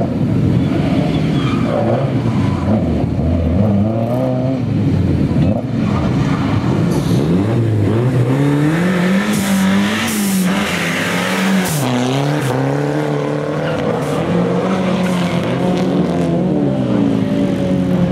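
Ford Sierra rally car's engine revving hard, the pitch repeatedly climbing and dropping, then pulling away about ten seconds in with a quick run up through the revs and gear changes.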